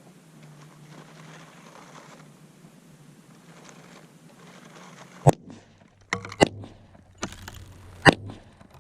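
Sharp shots from a Tippmann M4 .22 rifle, the loudest about five, six and a half and eight seconds in, with a few smaller cracks between them.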